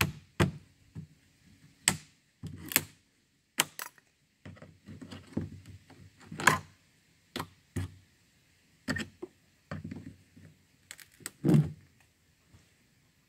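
Irregular wooden knocks and thunks, about a dozen scattered hits and short clatters: boards and tools being handled and struck in woodworking.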